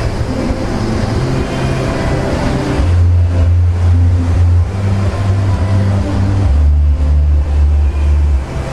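Loud music with a deep bass line that steps from note to note every second or so, over a dense, busy background hum.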